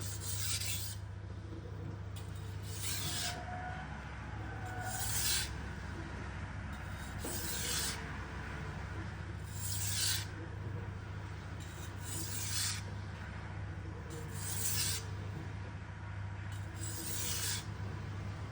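Steel prep-knife blade scraped across a vitrified diamond whetstone in sharpening strokes: about eight slow, evenly spaced hissing scrapes, roughly one every two and a half seconds, as the edge is sharpened. A steady low hum runs underneath.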